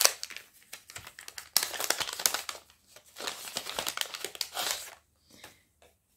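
Small kraft-paper sachet being handled and opened by hand: paper rustling and crinkling in bursts, dying away about five seconds in.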